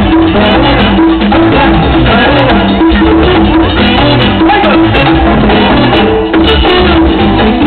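Live Puerto Rican plena band playing loud, with hand drums and plucked strings.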